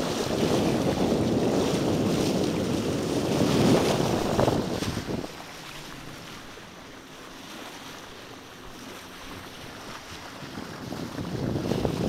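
Wind buffeting the microphone over the rush of water along a sailing yacht's bow. It is loud and rough for about five seconds, drops suddenly to a much quieter hiss, and builds again near the end.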